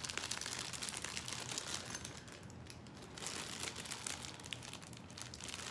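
Crinkly packaging being handled and unwrapped from a small incense cone burner, in two busier spells: the first second and again around the middle.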